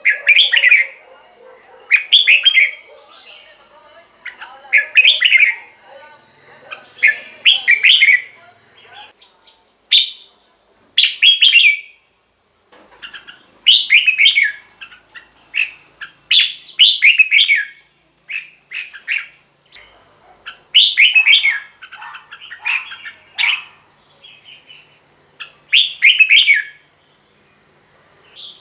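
Red-whiskered bulbul singing: short, loud, bubbling whistled phrases repeated every second or two, with a brief pause midway.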